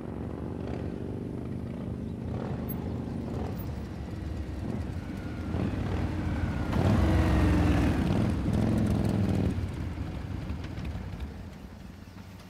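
Several motorcycle engines rumbling as a group of riders rides in. They grow louder, are loudest from about seven to nine and a half seconds in, then drop away near the end.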